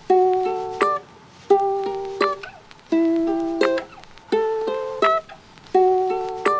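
Background music of a plucked string instrument, playing a light repeating phrase of short notes with brief pauses between phrases.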